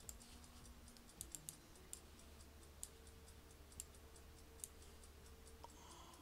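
Faint, irregular keystrokes on a computer keyboard, over a low steady hum.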